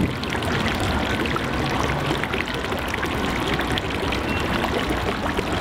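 Fountain water jet spouting from a fish sculpture's mouth and splashing steadily into the pool of its basin.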